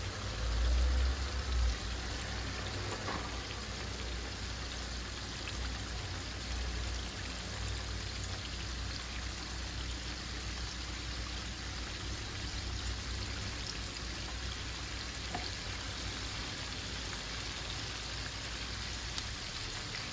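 Hot oil sizzling and bubbling steadily as breaded chicken pieces deep-fry in a pan, a constant rain-like crackle. A louder low rumble comes during the first couple of seconds.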